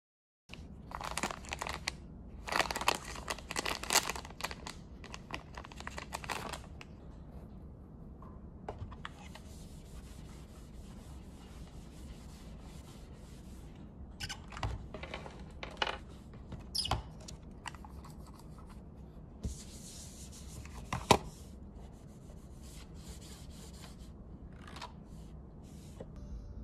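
Paper or plastic wrapping crinkling and tearing as it is handled, loudest in the first few seconds, then scattered rubbing and small clicks of things on a desk with one sharper click about 21 seconds in, over a low steady hum.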